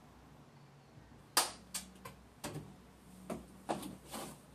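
About six light knocks and clicks at irregular spacing, the first and sharpest about a second and a half in: a doorway pull-up bar knocking in its frame as a person hangs and swings from it.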